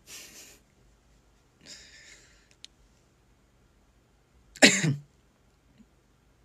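A man's single cough about four and a half seconds in, after two short breathy rushes of air.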